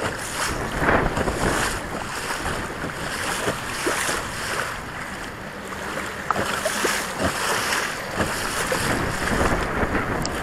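Wind buffeting the microphone over choppy waves slapping and splashing against the hull of a Hobie Pro pedal fishing kayak, in repeated surges about once a second.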